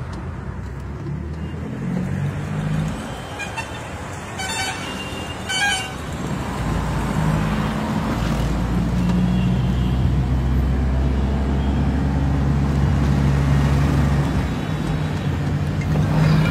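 Road and engine noise of a moving taxi, heard from inside the car, with two short car-horn toots about four and a half and six seconds in. The low engine drone grows louder from about seven seconds in.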